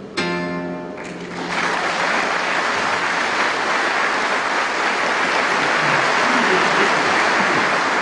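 Acoustic guitar's last plucked notes ringing out, then audience applause from about a second and a half in, steady and loud.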